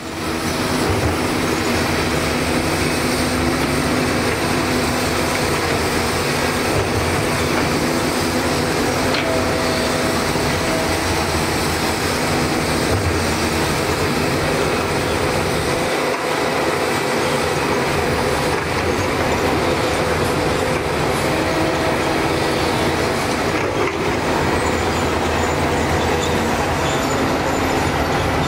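Kobelco hydraulic excavator's diesel engine running steadily under load while it digs and swings dirt into a dump truck, with other heavy diesel machinery running alongside. A constant, even engine drone throughout.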